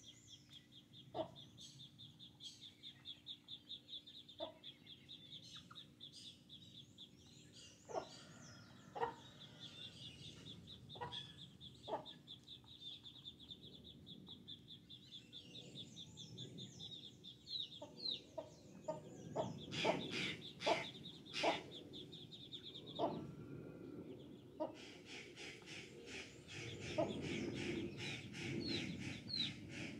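Domestic chickens clucking in short, scattered calls while feeding, busiest about two-thirds of the way through, over a high, steady pulsing trill that gives way to a louder buzzing near the end.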